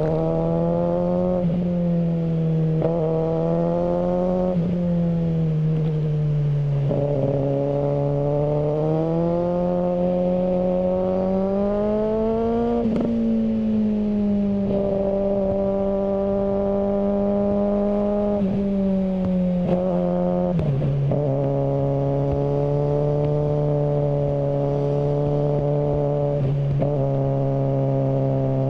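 Suzuki GSR600's 600 cc inline-four running through a GPR Ghost aftermarket exhaust while being ridden. The engine note rises and falls with the revs and drops sharply in pitch several times in the first half, then holds a steady, lower note from about two-thirds of the way in.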